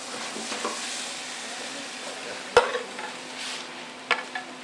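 Pan of cotechino sausage, escarole and beans sizzling on a gas burner while a metal spoon stirs it. A loud sharp knock comes a bit over two and a half seconds in. Near the end a few lighter clicks sound as the spoon scrapes the food from the pan onto a glass plate.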